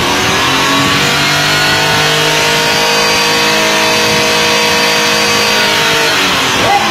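A motor vehicle engine revving up, held at a steady raised speed for several seconds, then dropping off near the end.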